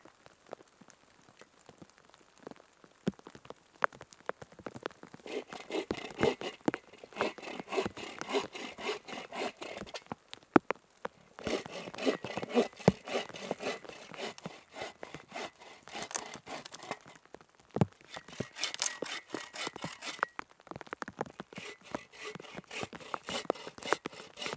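Hand saw cutting into a dead fallen tree trunk in quick back-and-forth strokes, starting about five seconds in and pausing briefly twice. Before the sawing, a few scattered snaps and steps on the forest floor.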